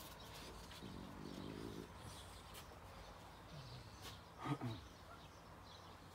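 Faint bird chirps over quiet garden ambience, with a short low two-part grunt from a French bulldog about four and a half seconds in.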